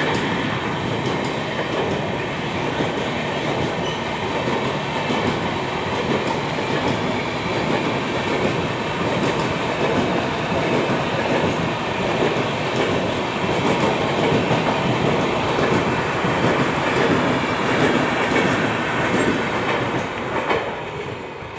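Express train's LHB passenger coaches running past close by, their wheels clattering steadily over the rails. The noise falls away near the end as the last coaches pull clear.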